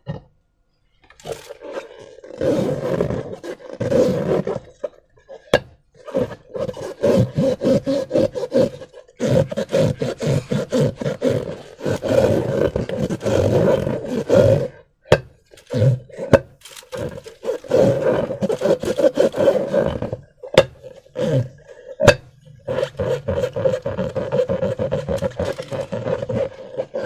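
Slime being squeezed and worked by hand, making sticky, crackling squelches in bursts of a few seconds with short pauses between, and a few sharp clicks.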